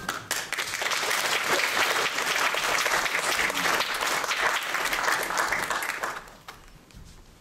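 Audience applauding, a dense patter of clapping that dies away about six seconds in.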